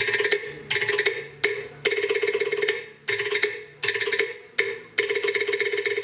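Pate, a Cook Islands wooden slit drum, struck with sticks. It gives a few separate knocks at first, then fast rolls in short phrases, and settles into a steady rapid roll near the end.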